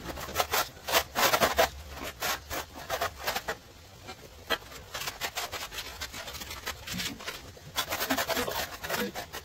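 Repeated scraping and rubbing strokes of a tiling tool working over mortar and ceramic floor tile, uneven in pace, with busier flurries of strokes about a second in and again near the end.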